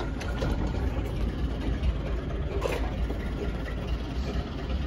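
A steady, low engine rumble from a machine running nearby, with a light click about two and a half seconds in.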